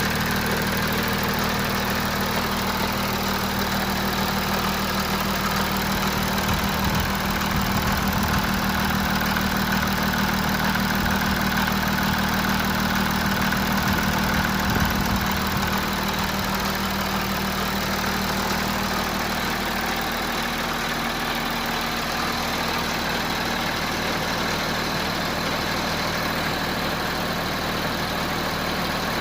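Audi 3.0 TDI V6 diesel (CRTE) idling cold with timing chain rattle, the sign of a faulty timing chain tensioner and worn exhaust camshaft. The engine sound is steady, and a low steady tone in it fades out about two-thirds of the way through.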